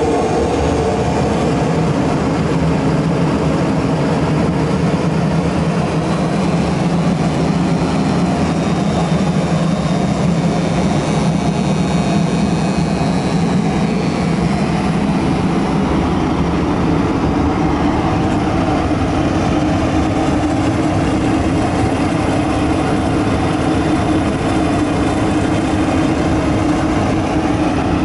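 Envirosystem AirWall 10,000 CFM dust collector running: its blower gives a loud, steady hum over a rush of moving air.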